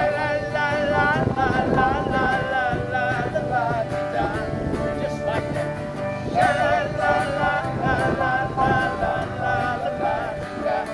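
Live acoustic band of acoustic guitar, ukulele and steel pans, with a man singing lead. He sings two lines, with a short instrumental gap in the middle.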